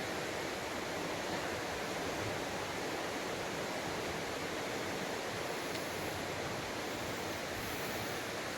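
Steady rush of the Maligne River's fast water through the canyon, a constant even roar.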